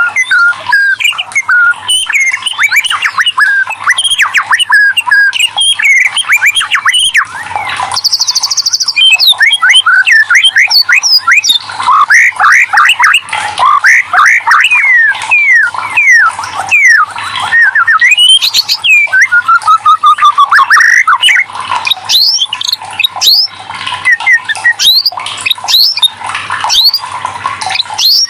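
White-rumped shama singing a loud, rapid, varied song of whistled sweeps, trills and chattering notes, with a buzzy note about eight seconds in and a run of falling notes around twenty seconds in.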